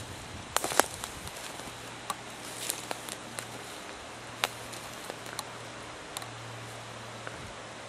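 Footsteps on dry leaf litter and twigs: irregular crackles and snaps, the loudest a little under a second in, over a steady hiss and low hum.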